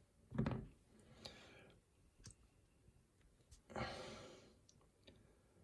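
A few small sharp clicks of lock pins and parts being handled, with two soft breaths.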